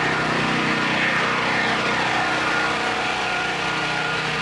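An engine running steadily, with a higher whine that falls in pitch about a second in.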